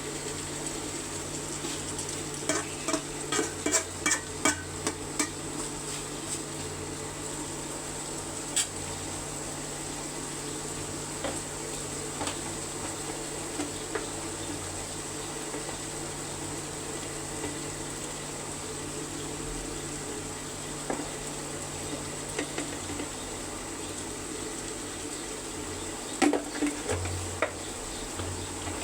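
A spoon knocking and scraping against a cooking pot while chicken curry is stirred. There is a quick run of knocks a few seconds in, then scattered single knocks, over a steady background hiss.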